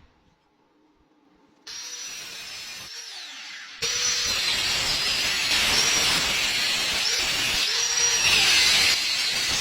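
A power tool starts running about two seconds in and gets louder about two seconds later. Its high whine dips in pitch and comes back up several times, as happens when the tool is pressed into the work.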